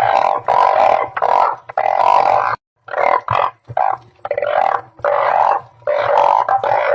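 Truncate-snouted burrowing frogs (Glyphoglossus molossus) calling: a run of loud, low calls, each up to about a second long, following close on one another and overlapping in places. There is a brief full break about two and a half seconds in.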